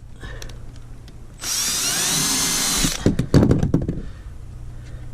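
Cordless drill-driver driving a screw into a timber door lining: one burst of about a second and a half, its motor whine rising as it spins up, then a quick run of sharp clicks.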